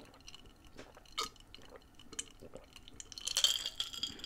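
Quiet drinking from a glass of iced drink: small clicks and clinks of ice and glass with soft swallows, then a louder, hissy stretch near the end.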